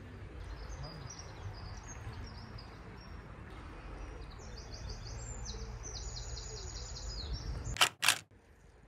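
Songbirds singing high chirps and rapid trills over a steady low rumble. Two sharp clicks, close together near the end, are the loudest sounds.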